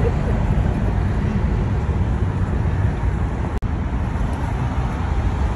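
Steady low background rumble, broken by a brief dropout about three and a half seconds in.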